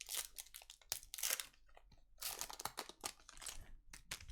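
Trading card pack wrappers being torn open and cards handled, crinkling and tearing in several irregular bursts.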